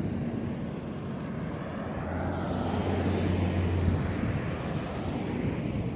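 Road traffic passing at a roundabout: a steady rush of tyres and engines, with one vehicle's low engine hum swelling about two seconds in and fading again about two seconds later as it goes by.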